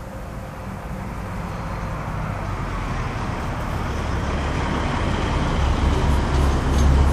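Road traffic noise swelling steadily louder, with a deep rumble underneath.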